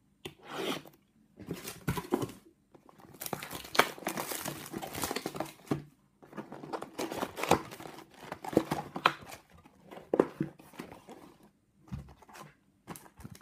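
Plastic shrink-wrap crinkling and tearing as a sealed trading-card box is unwrapped, with cardboard rustles and clicks as the box is opened.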